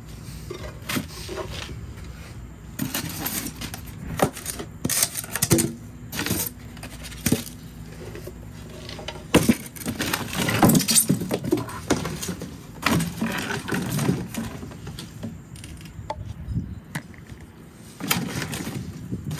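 Irregular knocks, clinks and clatter of tools and metal hardware being handled during a hands-on install, with a few busier stretches of scraping and rattling.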